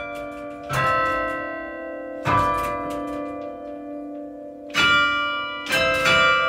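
Carillon bells played from a baton keyboard in a slow melody: five struck notes, each ringing on and overlapping the next.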